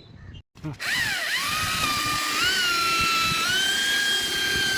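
Electric drill motor whining at full trigger. It starts just under a second in, its pitch dipping and rising as the speed changes under load, then holds a steady high whine.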